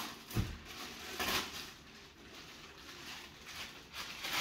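Clear plastic bag crinkling and rustling in uneven swishes as a heavy wrapped statue part is handled and lifted out of a cardboard box, with a dull knock about half a second in.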